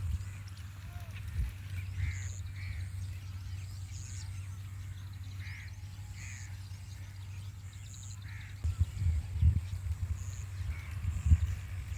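Birds calling in short, repeated chirps over a steady low rumble, with a few thumps near the end.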